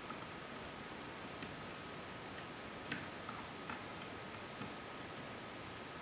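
Faint, irregular small metal clicks of a lock pick working the wafers of a Fichet 484 H switch lock cylinder, about ten in all, the loudest about three seconds in, over a steady background hiss.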